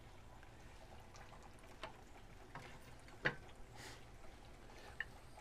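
A few light clicks of metal tongs as chicken drumsticks are lifted off a kamado grill's grate onto a plate, the sharpest about three seconds in, over faint background hiss.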